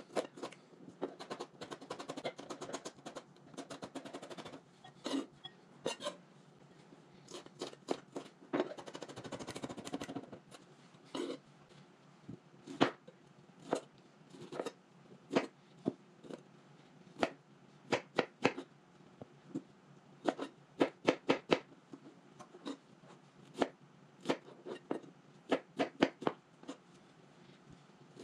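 Kitchen knife chopping on a plastic cutting board, dicing jalapeño and then pineapple chunks: irregular sharp taps of the blade on the board, often in quick runs of several strokes.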